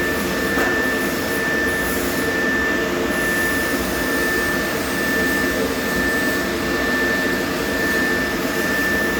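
A machine running steadily, a continuous hum with a constant high whine over it.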